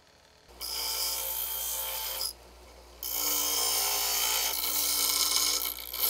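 Bench grinder grinding a bicycle frame's metal dropout: it starts about half a second in, grinds for nearly two seconds, the part lifts off the wheel briefly leaving only the motor's hum, then grinding resumes.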